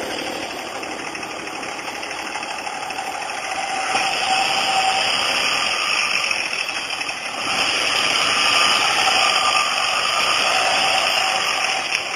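Dodge Ram 2500 pickup driving through mud on a dirt road, its engine running steadily. It gets louder about four seconds in and again near the middle as the truck comes close.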